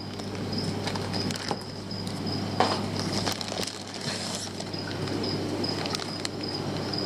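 Plastic fish-shipping bags and the box's plastic liner rustling and crinkling as they are handled, with irregular crackles throughout.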